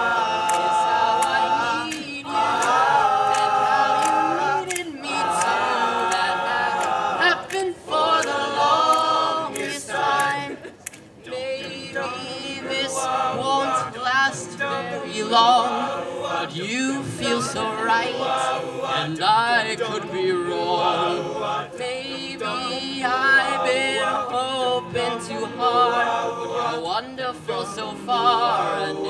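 Men's a cappella group singing a song in close harmony, several voices at once with no instruments.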